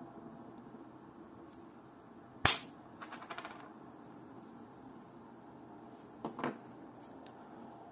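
A sharp snap about two and a half seconds in as a plexiglass watch crystal pops out of its case under thumb pressure, then a short rattle of small clicks as it drops onto the work mat. Two softer clicks follow near the end.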